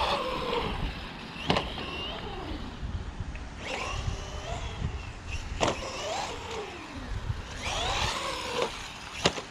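Brushless motor of a 1/12-scale 4x4 RC car whining up and down in about five throttle bursts, each about a second long. There is a low rumble of wind and tyres, and three sharp knocks as the car lands or hits things.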